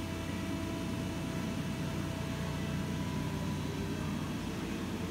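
Hydraulic pump of a Cincinnati 175-ton CB II CNC press brake running, a steady low hum with a thin higher tone above it.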